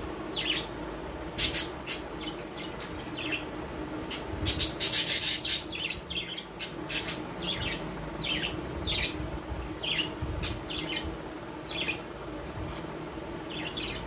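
Small caged parrots chirping in many short, sharp calls. About four and a half seconds in there is a second of scratchy rustling. A faint steady hum runs underneath.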